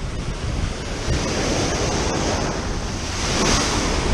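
Ocean surf breaking and washing in below, with wind rumbling on the microphone; the wash swells about a second in and again, louder, near the end.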